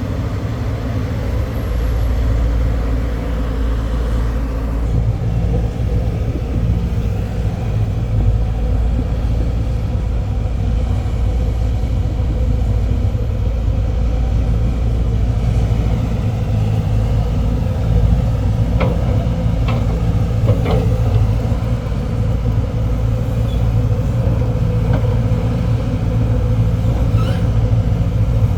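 Diesel engine of a hydraulic excavator running steadily with a deep rumble. A few short metallic clanks come about two-thirds of the way through.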